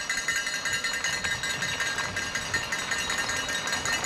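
Mountain bike rattling over rough trail while ridden uphill, with a steady high-pitched whine beneath the clatter.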